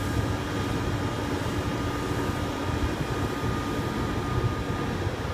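ÖBB class 1116 Taurus electric locomotive starting off slowly, its cooling blowers and traction equipment giving a steady hum with a thin high whine that fades near the end.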